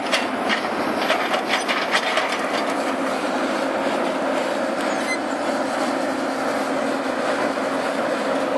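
Heavy orchard-removal machine running steadily with a low hum, as it moves on to the next tree. A quick run of clanks and knocks comes over the first couple of seconds.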